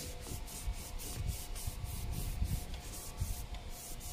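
Microfiber cloth rubbed briskly back and forth over a plastic car door handle, in short even strokes about four a second, with low dull bumps under them. This is the wipe-down that clears pre-cleaner and old residue off the plastic.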